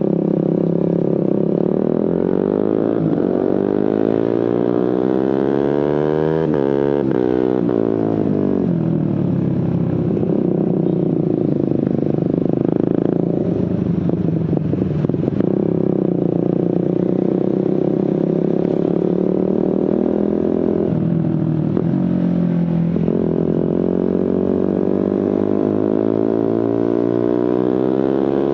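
Suzuki GSX-R150's single-cylinder engine through an aftermarket Prospeed exhaust under riding load, its pitch climbing, dropping and climbing again as the rider accelerates and changes gear.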